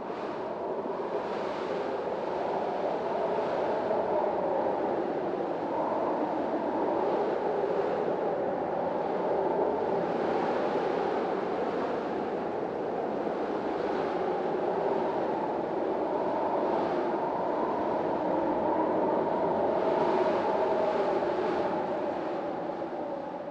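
Hurricane-force storm wind blowing steadily, swelling in gusts every second or two.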